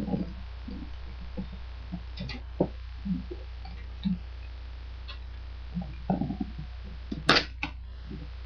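Cardboard shipping box being handled and taped shut: scattered light knocks and rustles, with one short, sharper and louder sound about seven seconds in, over a steady low hum.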